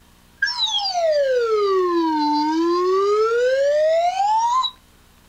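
American Song Whistle, a metal slide whistle, blown in one long glide. Its pitch falls slowly, then rises back up, and it stops abruptly after about four seconds.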